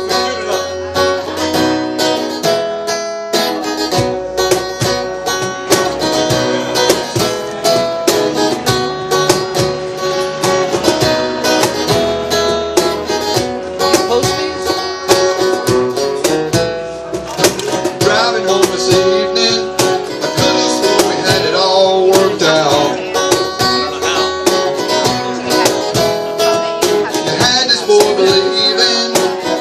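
Acoustic guitar strummed steadily with a cajon beating time under it: a live acoustic duo playing a rock song.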